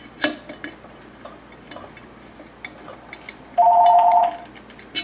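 Light metallic clicks and ticks from a Phillips screwdriver tightening the screws that hold a Marsh stencil machine's punch in its letter wheel. About three and a half seconds in comes a brief electronic trill of two pitches at once, lasting under a second; it is the loudest sound.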